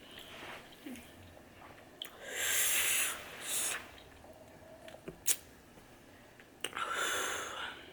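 Two long breaths rushing out through the mouth, each lasting a second or more, from a person whose mouth is burning from very spicy ramen. There is one sharp click just past halfway.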